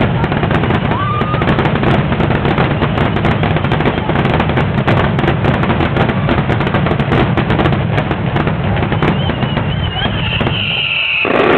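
Fireworks finale: a dense, unbroken barrage of shell bursts and crackling over a steady low rumble. A whistling tone and a louder burst come near the end.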